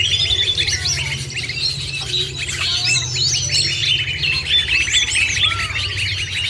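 A dense chorus of many small birds chirping and calling over one another, mixed with green leafbird (cucak ijo) calls. This is an agitated 'noisy birds' lure recording used to draw in wild birds. A steady low hum runs underneath.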